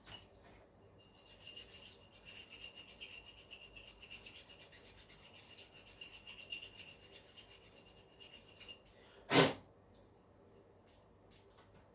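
Metal being worked on a steel shaft: a quiet, steady rasping with a thin high whine that runs for about eight seconds, then stops. One sharp metallic clank comes about nine seconds in.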